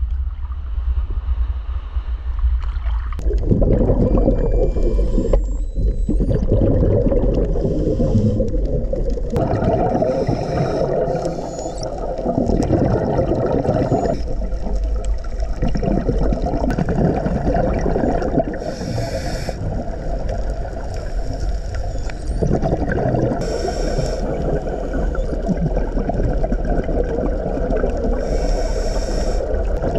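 Underwater sound through an action camera's housing: a steady muffled rumble with scuba divers' regulator bubbles gurgling. It gets louder about three seconds in as the camera goes below the surface, and a brief hiss recurs every few seconds.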